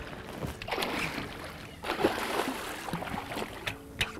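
A hooked bull redfish thrashing at the surface beside the boat, splashing water in two bursts of about a second each.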